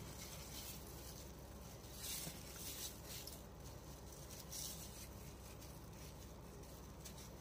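Faint rustling and soft scraping from plastic-gloved hands and a knife cutting slits into raw chicken pieces in a steel tray of marinade, over a low steady hum.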